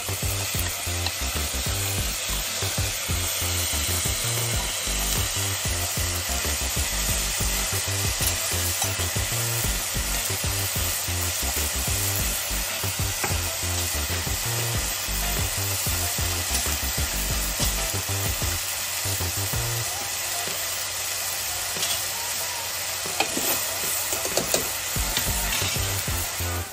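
Steady sizzling of vegetables frying in oil in a pressure cooker as dal and rice go in, with a few light clicks near the end.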